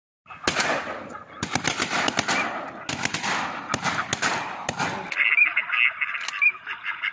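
A rapid volley of shotgun shots from several hunters firing at a flock of ducks, many shots in quick succession for about five seconds. Then it changes abruptly to ducks quacking.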